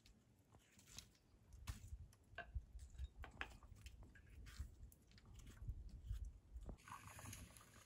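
Faint, crisp cutting sounds of a small knife peeling a firm fruit by hand: a scatter of small clicks and scrapes.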